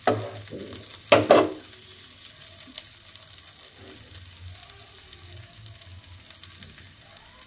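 A wooden spatula stirring and knocking flattened rice (poha) in a frying pan, with two loud strokes in the first second and a half. After that, only a faint, steady sizzle from the pan.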